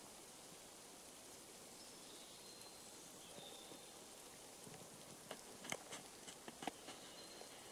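Quiet forest ambience: a faint steady hiss with a few sharp clicks and crackles about five to seven seconds in.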